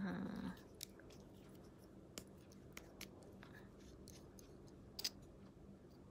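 Faint small clicks and rubbing from a plastic mascara tube being handled as its cap is twisted off and the brush wand drawn out, with a brief low voice sound at the very start.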